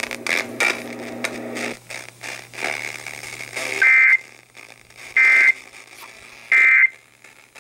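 Three EAS end-of-message data bursts: short, shrill digital screeches about 1.4 s apart, the SAME "NNNN" code that closes the severe thunderstorm warning, heard over radio with faint hiss and a low hum.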